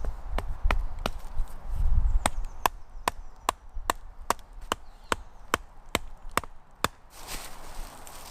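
Sharp wooden knocks repeating evenly, about two and a half a second, then stopping near the end with a brief rustle.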